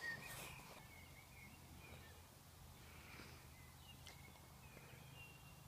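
Near silence: faint open-air ambience with a few short, distant bird chirps.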